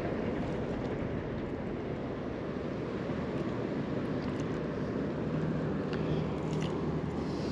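Steady low rumble of wind and river water, with the hum of a passing motorboat's engine that is clearest from about five seconds in.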